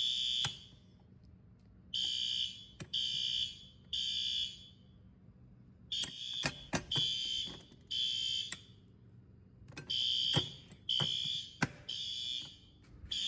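System Sensor SpectrAlert fire alarm horn-strobes sounding the temporal-3 evacuation code: three half-second horn blasts, a pause, then three more, repeating about every four seconds. The system has gone into alarm from a pulled manual station. A few sharp clicks and knocks fall between the blasts.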